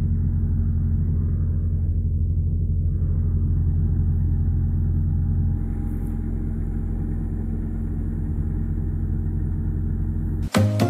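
New Holland 3630 tractor's diesel engine running steadily while it powers a KSA straw reaper cutting through wheat stubble; it is a little quieter after about five and a half seconds. Music comes in just before the end.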